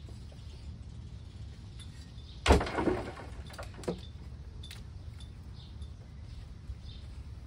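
A shovelful of earth is thrown into a grave. About two and a half seconds in there is one loud thud, and soil and stones patter down for about half a second. A few light ticks follow.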